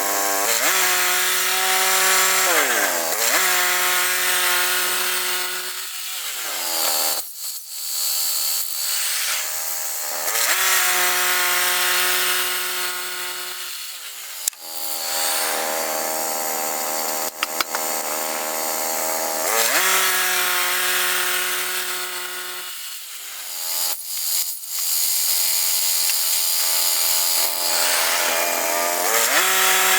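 Gas engine of a Woodland Mills HM122 portable bandsaw sawmill running at full throttle as the blade cuts through a log, its revs dropping several times and climbing back. In the quieter dips a few sharp clicks and clanks are heard.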